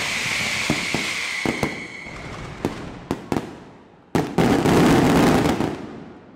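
Fireworks going off: dense crackling that thins out over the first two seconds, then a few sharp separate bangs. About four seconds in comes a sudden loud burst, with a couple of seconds of heavy crackling that fades away near the end.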